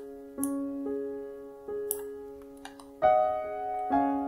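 Background music of sustained piano-like keyboard notes, changing every second or so, with a louder chord about three seconds in and another about a second later.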